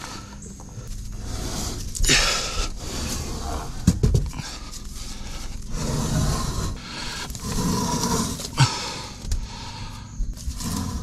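A man breathing hard and panting with effort while shoving a long 4x6 timber beam by hand, the wood scraping, with a couple of sharp knocks about four seconds in and again near the end.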